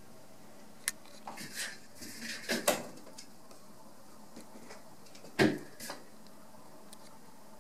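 Scattered light knocks and scuffs against a door, with one louder thump about five and a half seconds in.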